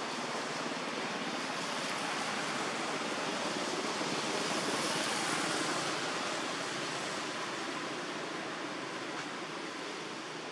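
Steady outdoor rushing noise with no clear single source, swelling about five seconds in and then easing off.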